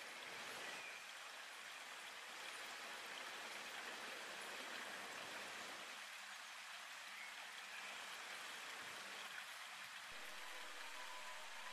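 Faint steady hiss, like light rain or running water, with no distinct sounds standing out.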